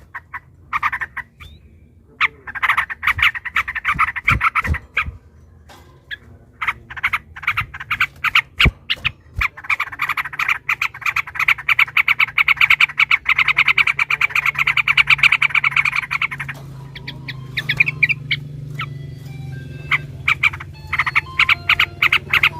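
Yellow-vented bulbuls calling in fast, harsh chattering runs, several birds at once, as in a territorial squabble. About ten seconds in the chatter turns into one long, dense run lasting several seconds, then breaks into looser separate notes and short whistles near the end.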